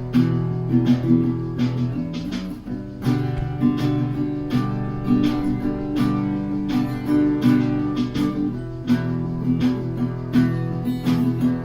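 Background music: strummed guitar chords with a steady rhythm.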